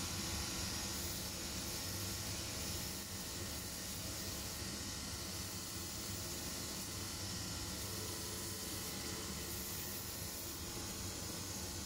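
Shoe finishing machine running with a leather shoe's sole edge pressed against its spinning sanding belt: a steady hiss of abrasion over a low, even motor hum.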